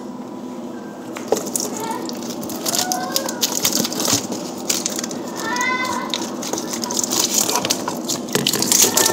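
Crackling and rustling handling noise as a phone's microphone rubs against hair and clothing, dense from about a second in, over a steady low hum. A few short high-pitched cries that rise and fall are mixed in.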